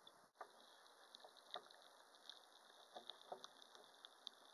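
Near silence picked up by a cheap waterproof pocket camera submerged in a rock pool, with a faint hiss and scattered faint clicks and ticks.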